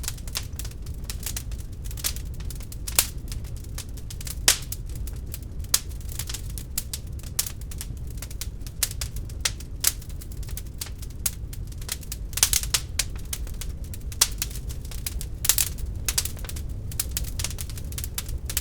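Wood fire crackling in a fireplace: a steady low rumble of burning with many irregular sharp pops and snaps, a few louder ones standing out.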